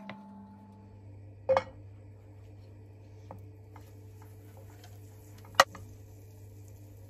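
A fork pushing cubes of butter around a non-stick frying pan as they melt, with a faint sizzle and a sharp metal click of the fork on the pan about five and a half seconds in. There is a louder knock about a second and a half in and a few light ticks, over a low steady hum.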